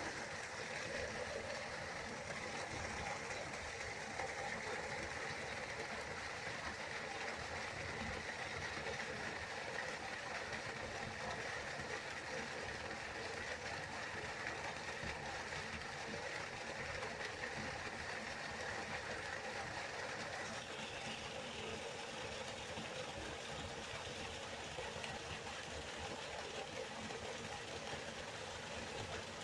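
River water flowing, a steady rushing without breaks; its hiss shifts slightly higher about twenty seconds in.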